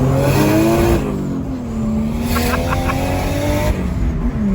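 Nissan Skyline R33 with an HX35 single turbo accelerating hard, heard from inside the car: the engine's revs climb, drop about a second in, climb again and fall away near the end, with a rush of hiss as the revs drop.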